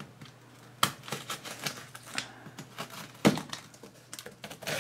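A taped cardboard shipping box being opened by hand: the flaps are pulled apart and folded back with a run of sharp cardboard snaps, creaks and scrapes, the loudest snap a little past three seconds in.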